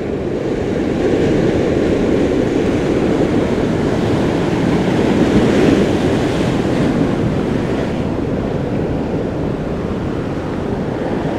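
Heavy ocean surf breaking and churning against rocks: a loud, steady rush of water.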